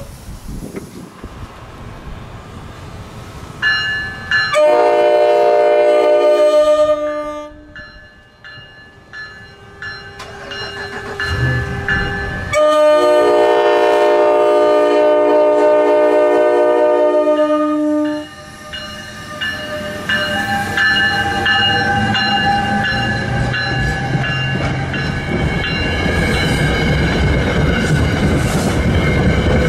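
NJ Transit train horn sounding two long blasts of a multi-tone chord, the second held for about five seconds. Then a passenger train rolls past with rising rail rumble and wheel clatter.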